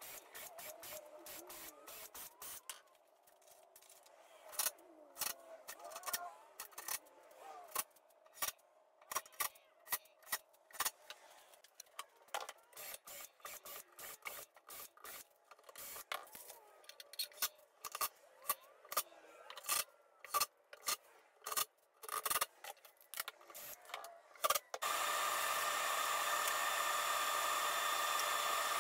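Cordless drill running in short bursts into a plywood cabinet, then a long string of sharp clicks and knocks as trigger clamps are squeezed and worked along the box. About 25 seconds in, a woodworking machine starts abruptly and runs with a loud, steady whine and hiss.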